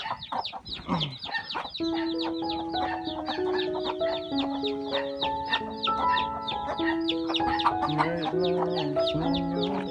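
Chicks peeping constantly, many quick high falling peeps a second. From about two seconds in, background music with a melody of held notes plays over them.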